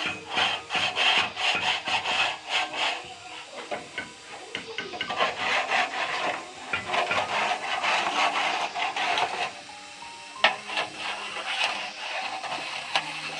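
Wood being sawn by hand in quick back-and-forth rasping strokes, with a sharp knock about ten seconds in.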